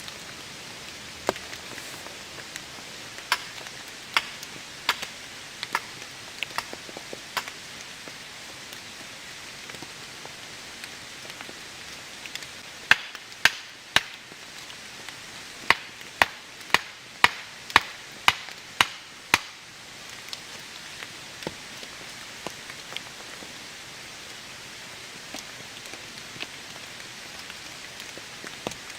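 Steady rain with a few scattered knocks in the first seconds, then a run of about a dozen loud, sharp strikes, about two a second, lasting some six seconds around the middle.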